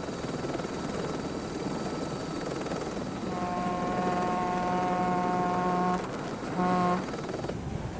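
Helicopter running, a steady rotor and engine noise with a thin high turbine whine. About three seconds in, a loud pitched tone with a horn-like buzz joins it, stops near six seconds and sounds once more briefly.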